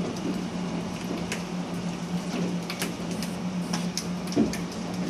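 Hail and rain falling: an even hiss broken by scattered sharp ticks of individual hailstones striking, a handful of them at irregular moments. A steady low hum lies underneath.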